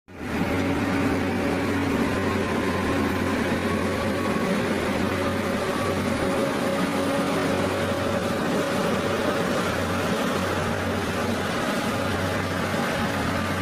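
Engine of heavy construction machinery running steadily, with a constant hum and no change in speed.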